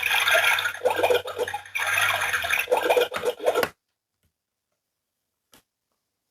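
Rubbing and scraping of small plastic toys and their packaging, many quick strokes close to the microphone. It cuts off abruptly a little past halfway.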